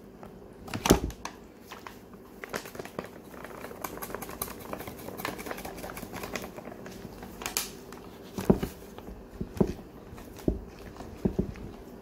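A spoon stirring flour into dough in a plastic mixing bowl: irregular clicks, scrapes and knocks of the spoon against the bowl, a few of them louder about a second in and again late on, with the rustle of a flour bag as flour is poured from it partway through.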